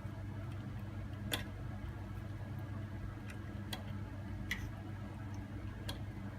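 Two-month-old Scottish Fold kitten feeding: four short sharp clicks at uneven spacing over a steady low hum.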